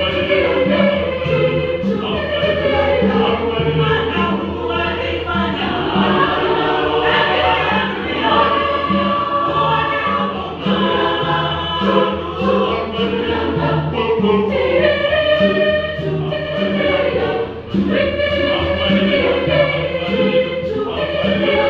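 A large mixed choir singing a gospel arrangement in several parts, with conga drums keeping a steady beat underneath.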